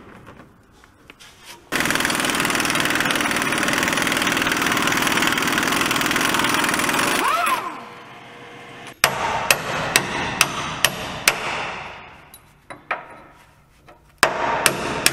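A power tool runs steadily for about six seconds on the rear leaf-spring shackle bolt of a 2003 International 4300 truck, then stops. A run of sharp metal clicks follows, about two a second, and more clicks come near the end.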